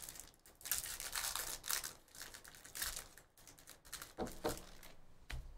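Upper Deck hockey trading cards being handled as a new pack is torn open and its cards are slid through the hands: irregular rustling and swishing swipes, with a couple of soft knocks near the end.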